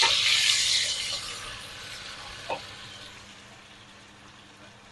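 Sliced onions sizzling in hot oil with whole spices in a pressure cooker on full heat, just after they go in. The sizzle is loud at first and dies down over the next couple of seconds as they are stirred with a wooden spoon, with a single knock about two and a half seconds in.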